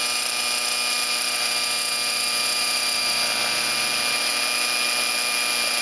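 O.S. .55 glow-fuel model engine in a radio-controlled helicopter, running at a steady speed while hovering: a high, even, whining drone with many pitches stacked together.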